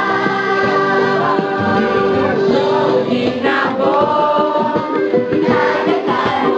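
Background music with several voices singing held notes over a steady beat.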